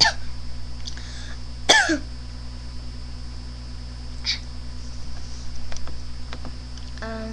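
A girl's short cough about two seconds in, with smaller throat sounds at the start and a little after four seconds, over a steady low electrical hum.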